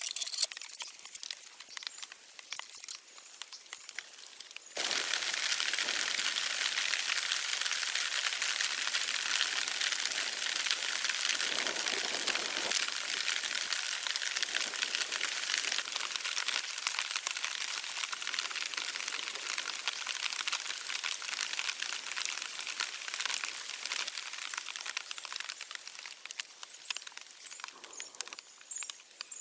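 Wood fire crackling with sharp irregular pops, then about five seconds in a steady, even hiss starts abruptly and carries on, easing off slightly near the end.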